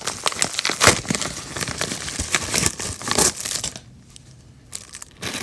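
Packaging crinkling and tearing as it is handled and opened by hand, in a run of sharp rustles. It goes quieter for about a second near the end, then the rustling starts again.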